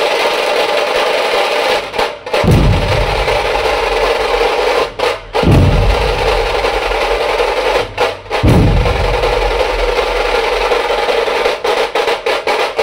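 Dhol-tasha ensemble playing: rapid tasha rolls over massed dhol beats. The group breaks off for a moment three times, about every three seconds, and each time comes back in on heavy dhol strokes.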